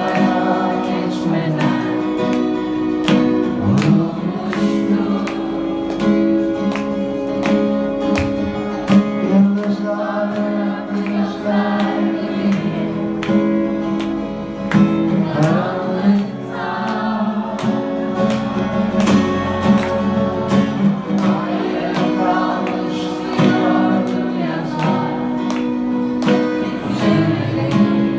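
Live band playing a Turkish pop-rock song: strummed guitar under sustained chords, with singing throughout.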